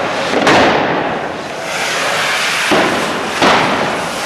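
Cordà gunpowder rockets burning at close range, a continuous fizzing hiss as they spray sparks along the street, with three sudden louder bangs: one about half a second in and two close together past the middle.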